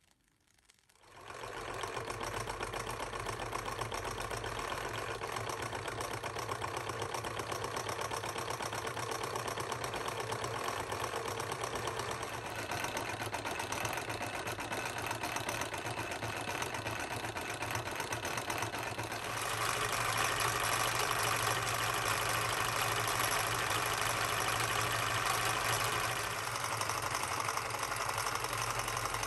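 Antique toy hot air engine (Krauss, Mohr & Co., around 1899) running with a fast, steady mechanical clatter from its piston and linkage, setting in after about a second of near silence. The sound grows louder and fuller about two-thirds in and eases a little near the end.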